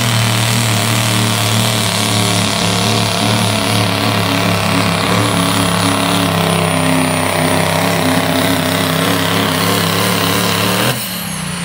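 Light pro diesel pickup's engine running at full throttle under load as it pulls a sled, steady and loud, with a high turbo whistle over it. Near the end the engine cuts off abruptly and the turbo whistle falls away as it spools down.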